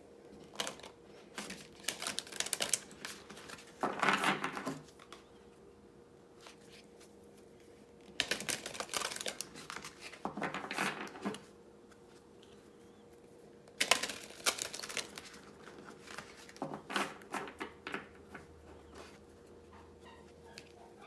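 A deck of oracle cards being shuffled by hand: several bouts of rapid flicking clicks, each a second or three long, with short pauses between them.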